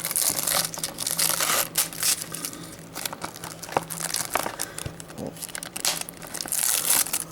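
Plastic wrapping crinkling and tearing as it is pulled off a 4K/Blu-ray disc case, in an irregular run of crackles.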